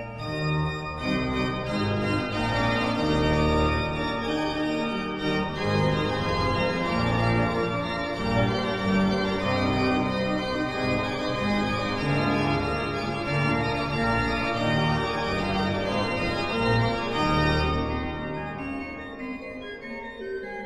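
Organ playing a classical piece: sustained chords over a moving bass line, growing softer near the end.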